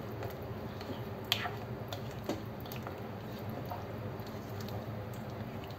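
Soft wet squishing of vegetables in coconut milk as they are stirred and added to in a pot, over a steady low hum, with a few light clicks, the sharpest about a second and a half in.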